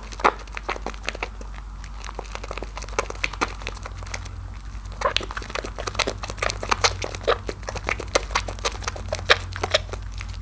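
Soap lather being squished as a bar of soap is worked in thick foam: dense, irregular wet crackling and popping, busier in the second half.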